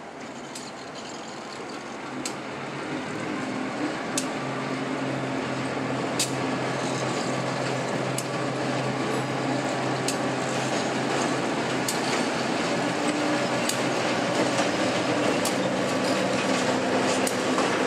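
Freight cars rolling slowly past, their wheels clicking over the rail joints about every two seconds, growing louder as the cars come close, over a steady low hum.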